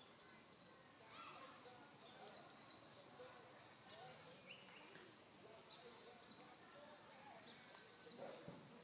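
Near silence: faint outdoor background, a steady high hiss with a faint repeating chirp and a few scattered faint calls.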